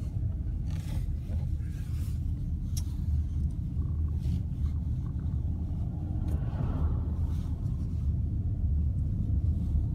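Steady low rumble of a car driving, with a few faint clicks and knocks.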